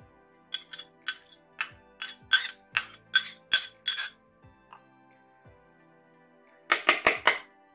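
Steel spoon clinking against a ceramic bowl as chopped coriander is scraped out: a quick, uneven run of clinks over about four seconds, then a short cluster of them near the end, over quiet background music.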